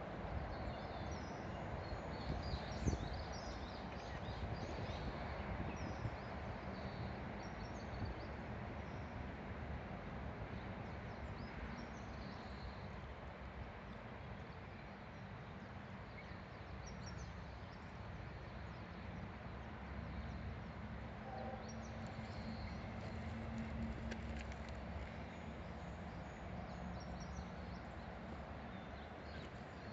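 The Kuma River murmuring steadily, with small birds chirping and twittering now and then, and wind buffeting the smartphone's microphone as a low rumble. A single knock sounds about three seconds in.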